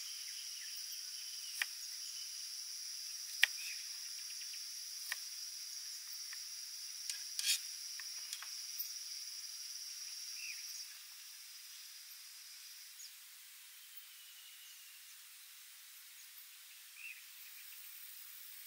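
Kitchen knife cutting strawberries on a wooden board: a series of sharp taps, about one every second or two over the first nine seconds, with a quick cluster about seven and a half seconds in. Behind them is a steady high-pitched hum that stops about eleven seconds in.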